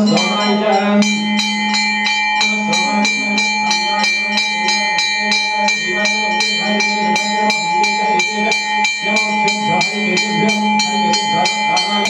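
Temple bells ringing in a very even rhythm, about three to four strokes a second, over steady ringing tones.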